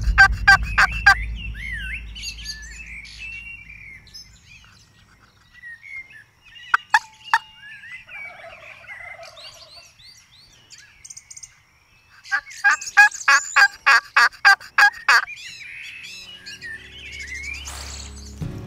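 Turkey calls: two loud runs of evenly spaced notes, about four a second, one at the start and one about two-thirds of the way through, with small songbirds chirping in between. Music comes in near the end.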